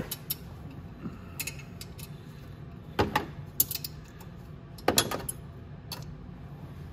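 Wrench working an exhaust manifold bolt tucked behind a motorcycle frame: scattered metallic clicks and clinks as the wrench is fitted and turned on the bolt, loudest about three and five seconds in.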